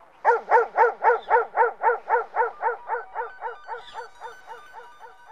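A short pitched yelp-like sound repeated about four times a second by an echo effect, each repeat softer, fading away over about five seconds within an electronic dub track. Faint steady synth tones come in about three seconds in.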